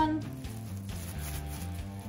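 Background music: soft, steady notes changing every fraction of a second.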